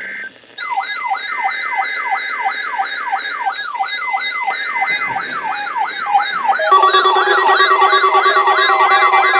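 Weather alert radios sounding siren-like alarms, set off by the weekly test. A fast rising-and-falling warble repeats about three times a second, and a second overlapping alarm with steadier tones joins about two-thirds of the way in.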